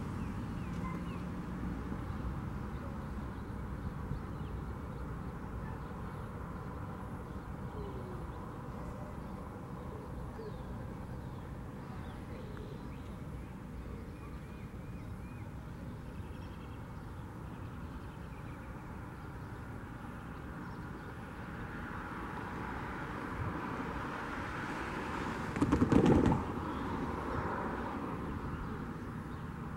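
Outdoor ambience: a steady low rumble of distant traffic with faint bird chirps, and one loud, brief pitched sound lasting about a second near the end.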